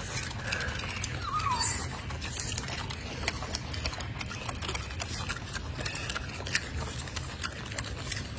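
Golden snub-nosed monkeys eating chopped fruit and vegetables: scattered crunching and clicking from their chewing, with a brief falling chirp about a second in.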